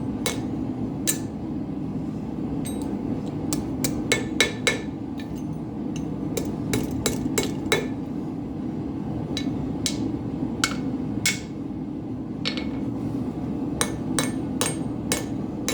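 Blacksmith's hammer striking steel on the anvil, with irregular sharp ringing strikes in quick clusters, working or knocking at a nail stuck in the nail header, over a steady low rumble.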